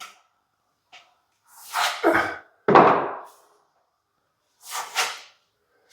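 Plastering trowel scraping across wet pre-mix filler on plasterboard in three short strokes, the middle one starting with a sharp knock.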